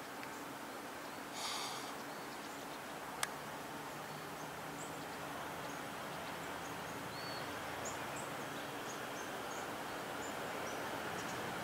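Outdoor ambience: a steady faint hiss with a low steady hum underneath, and small birds chirping from about four seconds in. A short harsh burst comes about a second and a half in, and a single sharp click about three seconds in.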